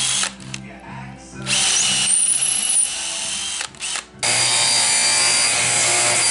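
DeWalt cordless drill driving screws into plywood, in several runs of a second or two with short pauses between.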